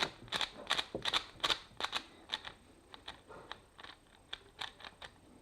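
Sharp plastic clicks and clacks from a QiYi QiYuan S 4x4 speed cube being handled, about three a second at first, then sparser and fainter.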